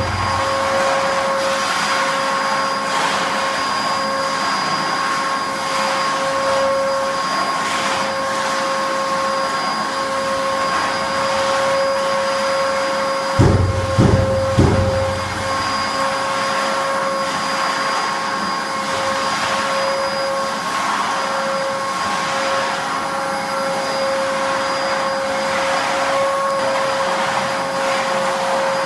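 Hilti VC 20-U construction vacuum cleaner running steadily, a high motor whine over a rush of air. About halfway through come three low thumps in quick succession.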